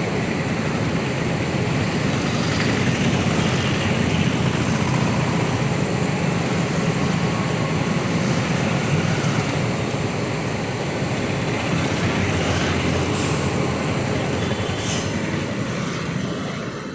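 Indian Railways express passenger train pulling out of the station, its coaches rolling steadily along the track with a continuous rumble of wheels on rails.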